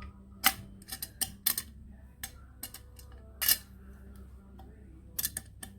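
Angle grinder's wheel guard clicking and clacking against the die-cast gearbox head as it is turned and pushed to line up its notches: a dozen or so sharp, irregular clicks, the loudest about three and a half seconds in and a quick cluster near the end.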